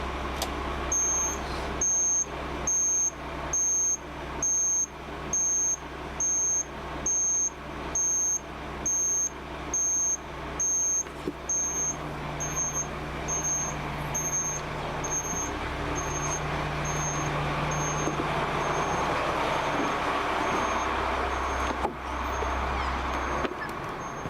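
Turn-signal indicator beeping: a high electronic beep repeating a little faster than once a second, with the motor home's engine running steadily beneath. The beeps start about a second in, grow fainter about halfway through and go on faintly almost to the end.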